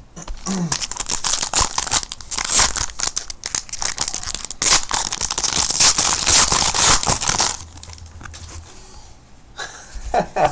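A trading card pack's wrapper being torn open and crumpled: dense crackling rustle that dies down about seven and a half seconds in.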